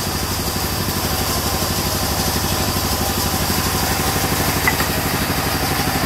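Sawmill band saw and the engine that drives it running steadily, with a fast regular pulse.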